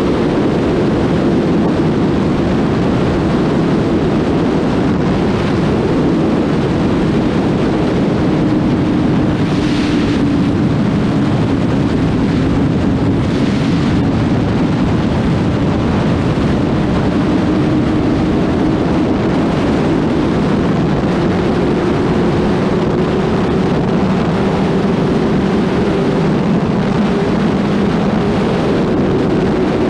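Kawasaki ZX-6R 636's inline-four engine running steadily as the bike is ridden, its note drifting gently down and back up, over a continuous rush of wind and road noise. Recorded through a GoPro HERO8 with a Wind Slayer foam wind cover.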